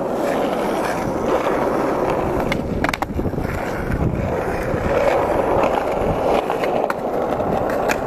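Skateboard wheels rolling over rough asphalt, a steady loud rumble, with a couple of sharp clacks of the board about three seconds in.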